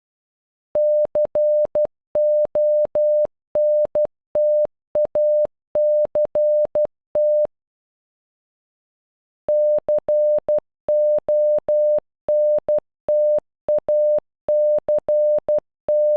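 Morse code beeps: a single steady mid-pitched tone keyed on and off in short dots and longer dashes, spelling out "CONTACT" (-.-. --- -. - .- -.-. -). The sequence plays through, stops for about two seconds, then starts again.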